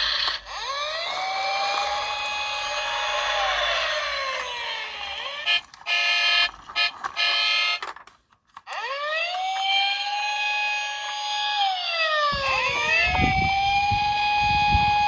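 Police siren wail sounding over and over, each cycle rising to a held tone and then falling, with several wails overlapping. It cuts out briefly a few times around the middle, and a low rumble joins near the end.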